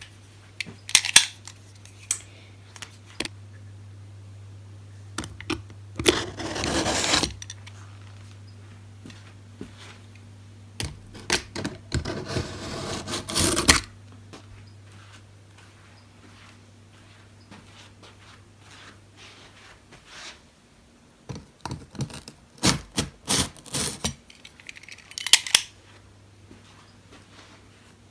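A cardboard parcel being opened by hand: sharp clicks and knocks from handling the box, with two longer stretches of tearing and rustling packaging about six and twelve seconds in, and a further run of knocks and scrapes near the end.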